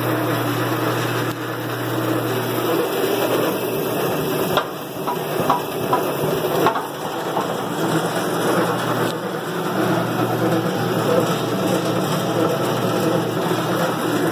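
Gear-driven vertical band saw's drive running with a steady hum and mechanical noise, with a few sharp clicks midway. The owner reports this same noise in every gear, with the belts off and with the blade off, and takes it for a fault in the drive.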